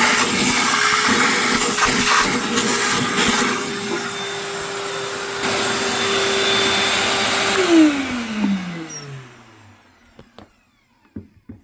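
Vacuum cleaner running steadily, then switched off about eight seconds in, its motor whine falling in pitch as it winds down over a couple of seconds, followed by a few faint clicks.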